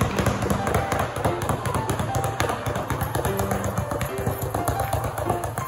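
Two basketballs dribbled rapidly at once on an indoor court floor, a fast, continuous run of low bounces.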